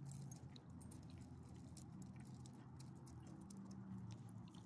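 Faint scattered clicks and light jingling from small leashed dogs, their collar tags and claws on the pavement, over a steady low hum.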